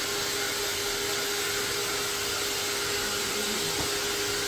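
Hair dryer running steadily: an even rush of blown air with a constant low motor whine.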